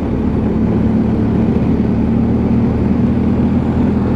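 Motorcycle engine running steadily at cruising speed, with wind and road rush over it.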